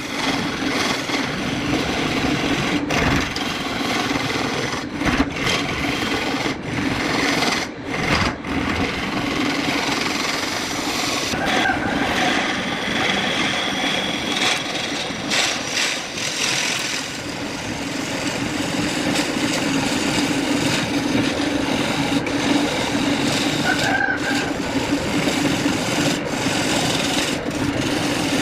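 Wood lathe running with a steady hum while a tool scrapes against the spinning wooden workpiece, making a continuous rasping noise. The noise breaks briefly a few times in the first several seconds.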